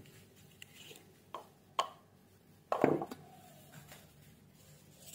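A few scattered clinks and knocks of metal kitchen utensils and cookware being handled, about four, the loudest near the three-second mark with a short ring after it.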